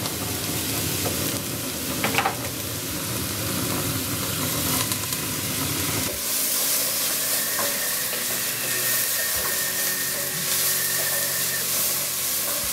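Chopped onion, fennel and sausage sizzling as they fry in a hot enamelled pot, stirred now and then with a spoon.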